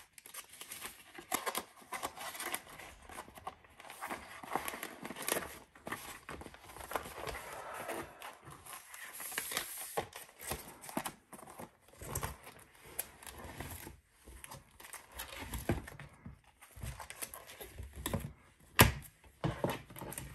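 Printed paper recipe sheets and a thin plastic sheet protector being handled and slid together, crinkling and rustling with many small clicks. One sharp click near the end.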